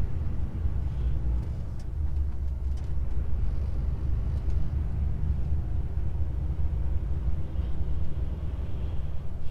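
DAF XF truck's diesel engine and road noise heard from inside the cab while driving, a steady low rumble.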